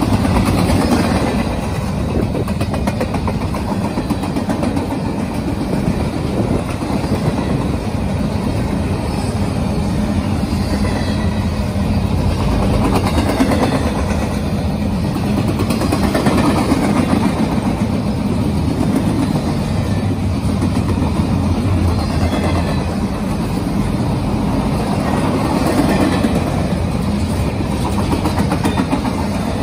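Freight train of empty double-stack intermodal well cars rolling past, a steady rumble of steel wheels on rail that swells and eases every few seconds.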